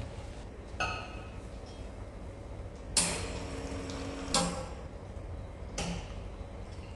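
Milk poured from a carton into a stainless steel milk pitcher, with four sharp knocks and clinks as the pitcher and carton are handled; the loudest comes about three seconds in. A steady low hum runs underneath.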